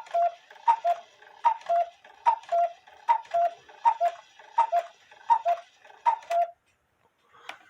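Cuckoo clock calling the hour: nine two-note cuckoo calls, a higher note then a lower one, about every three-quarters of a second, each with a click of the mechanism, stopping about six and a half seconds in. The call sounds but the bird stays behind its door, because the flat tab on the bird post was left out from behind its lever.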